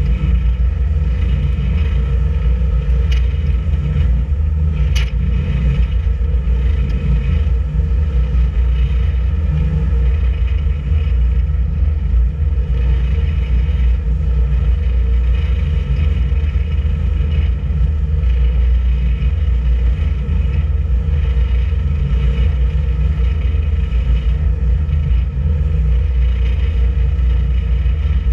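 Boat's engine running steadily under way, a deep constant drone with a steady hum above it. A couple of brief clicks about three and five seconds in.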